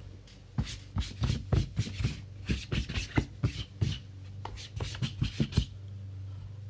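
A quick, irregular run of taps and knocks, like hands handling things on a tabletop, lasting about five seconds. A low steady hum sits underneath.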